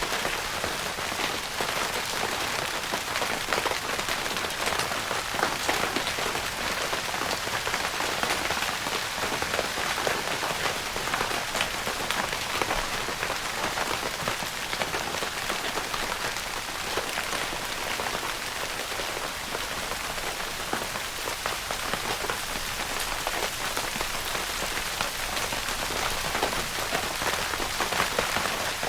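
Steady rain pattering on a tent's fabric roof, a dense even patter of countless small drop taps.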